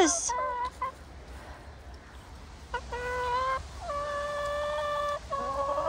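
Domestic hens calling: a few short clucks at the start, then, after a quiet second or two, three drawn-out, level-pitched calls of about a second each, one after another.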